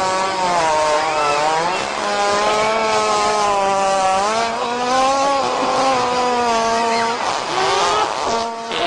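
One long, buzzy fart sound, held at a steady pitch that wavers slightly up and down.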